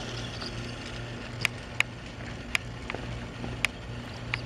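About six sharp, irregular pops, the first about a second and a half in and the last near the end, over a steady low hum.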